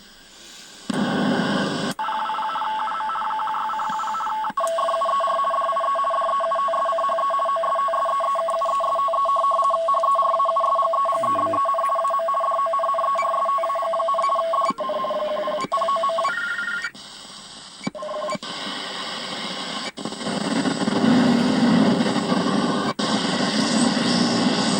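Yaesu FRG-8800 shortwave receiver playing through its speaker: a two-tone data signal chattering rapidly, shifting pitch a couple of times. Sharp clicks mark changes of signal, and a hiss of band noise takes over near the end.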